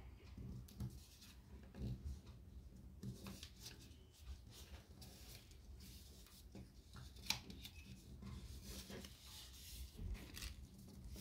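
Faint crinkling and rustling of a paper strip being folded and pressed into creases by hand, with one sharper click about seven seconds in.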